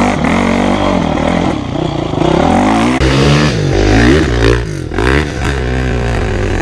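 Dirt bike engines revving hard under load on a steep hill climb, the pitch repeatedly rising and falling as the throttle is opened and closed.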